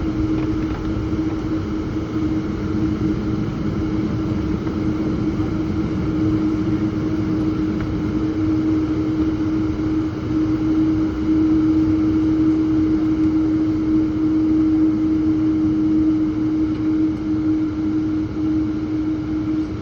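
Cabin noise of an Embraer 195-E2 jet with its Pratt & Whitney PW1900G geared turbofans under power: a steady rumble of engines and airflow with a steady droning tone.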